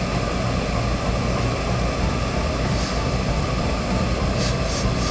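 Steady mechanical drone while a gravity-feed steam iron presses wool suit trousers, with a few short hisses of steam, two of them near the end.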